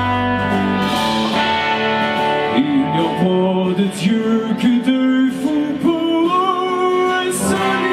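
Live band playing a rock song, with acoustic and electric guitars and drums, while a man sings in French; the singing comes in a couple of seconds in.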